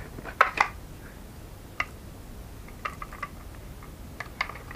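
Scattered sharp plastic clicks and taps from a pistol-grip RC car transmitter being handled and turned over in the hands: two louder clicks about half a second in, then lighter clicks spread through.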